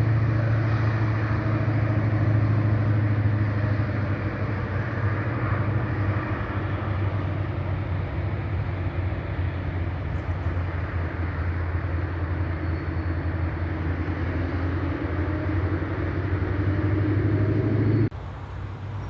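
Steady road traffic noise with a deep engine drone, which drops off suddenly near the end.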